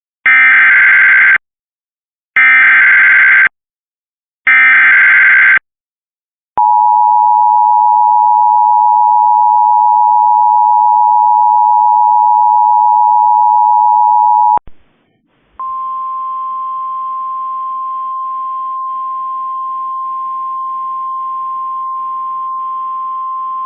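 Emergency Alert System tones: three short warbling SAME data bursts, then the two-tone EAS attention signal held for about eight seconds. After it stops abruptly and a second of quiet, a single steady tone slightly higher in pitch and quieter sounds: the 1050 Hz NOAA Weather Radio warning alarm tone carried in the relayed weather-service audio.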